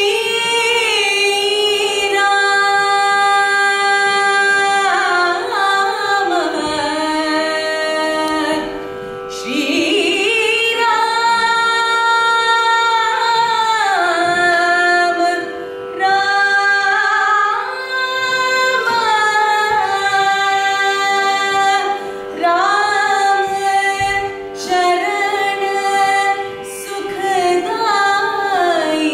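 Slow devotional singing in a South Asian classical style: long held notes that glide and bend between pitches, over a steady drone.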